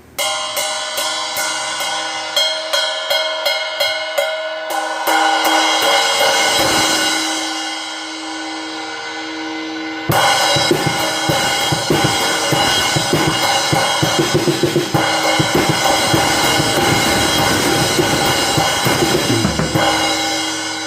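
Armada Achilles AXL cymbals played on a drum kit. First there is a run of evenly spaced cymbal strokes and a ringing wash. About halfway there is a sudden loud crash, then a full groove with bass drum and snare under the cymbals until near the end, where the cymbals are left ringing.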